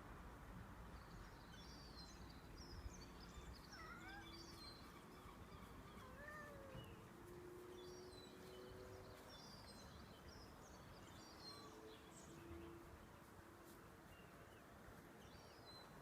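Faint twittering of small birds, high-pitched chirps in scattered clusters, with a couple of short rising-and-falling calls about four and six and a half seconds in.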